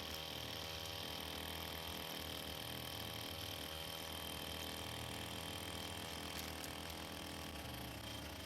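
Small petrol engine of a grass-cutting brush cutter running steadily, with a constant high whine above its low hum.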